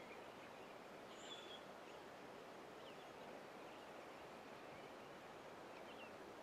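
Near silence: faint outdoor ambience with a few faint, short, high bird chirps, the clearest about a second in.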